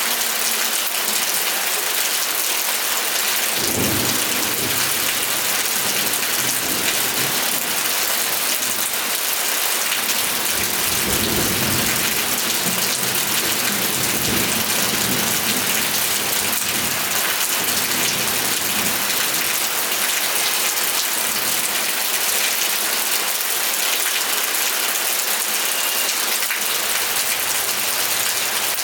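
Steady rain falling, a dense even hiss, with low rumbles of thunder swelling up about four seconds in and again for several seconds from about eleven seconds in.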